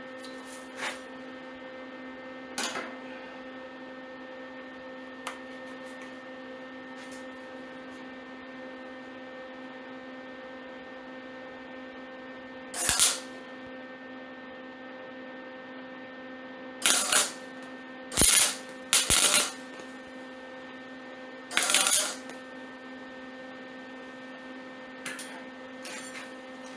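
MIG (wire-feed) welder laying down a handful of short tack-weld bursts, each under a second, over a steady hum. The weld runs with lots of heat and not much wire feed, as the welder judges it.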